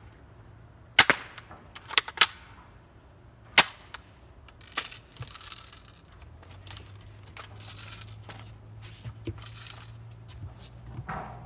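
Airsoft gun shots: four sharp pops in the first four seconds, two of them close together just after two seconds, then fainter scattered rustling.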